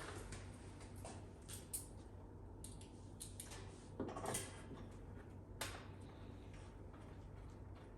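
A few light clicks and knocks of parts being handled, over a low steady hum. The loudest knocks come about four seconds in and again shortly before six seconds.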